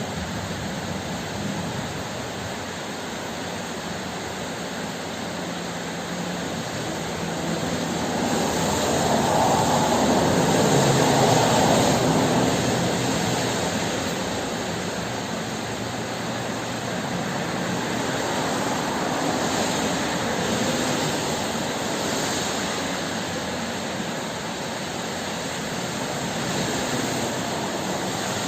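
Steady heavy rain hissing, with a long roll of thunder that builds about a quarter of the way in, peaks, and fades away over several seconds, followed by a weaker rumble later on.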